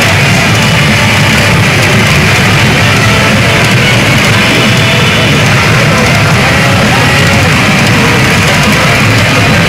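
Loud, steady rock-style music with guitar playing from a Mizuho 'Midori Don Hanabi de Buongiorno' pachinko machine.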